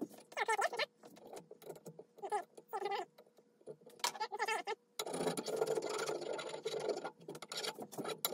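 Four-way rasp (four-in-hand file) scraping the wooden axe handle held in the vise. For about the first five seconds it makes a few short, separate strokes with pitched, wavering tones. From about five seconds in it turns to fast, continuous rasping strokes.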